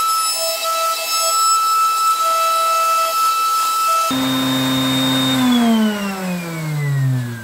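Table-mounted router with a bearing-guided flush-trim cutter running at full speed with a steady high-pitched whine. About four seconds in it is switched off, and the sound drops to a lower hum that falls steadily in pitch as the cutter spins down.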